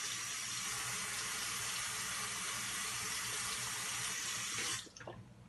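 Water running steadily from a tap into a sink, turned off suddenly near the end.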